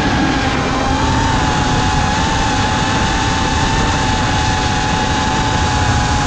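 FPV quadcopter's brushless motors whining steadily, heard from the drone's onboard camera over a rushing noise. The pitch steps up slightly about a second in and then holds.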